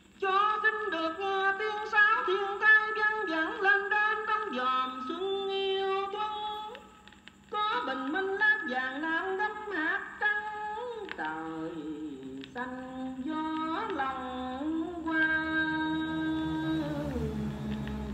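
A sung Vietnamese song with instrumental backing, played from an old vinyl record on a National Compact Modular Stereo turntable and heard through its two speakers. The singing drops out briefly about seven seconds in, and near the end a long held note gives way to a lower instrumental line.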